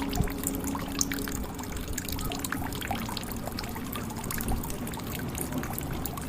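Water trickling and dripping into water in a jug: a steady run of small drops and splashes.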